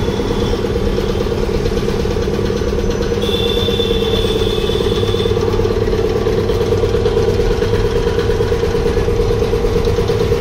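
Belt-driven twin-cylinder piston air compressor running steadily under its electric motor, an even fast mechanical pulsing. A faint high whistle sounds for about two seconds near the middle.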